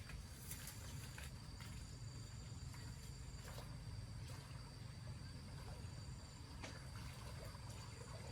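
Insects trilling steadily, with a second higher trill that starts and stops, over a low steady rumble and a few scattered light clicks.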